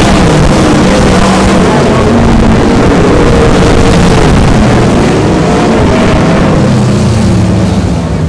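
Several winged dirt-track sprint cars' V8 engines racing at full throttle, very loud. Their notes overlap and rise and fall in pitch as the cars go through the turns, easing off a little near the end.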